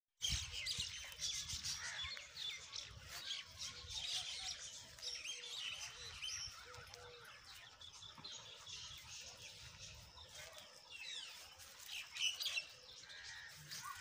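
Many short, high bird chirps in quick succession, with a low rumble underneath for roughly the first ten seconds.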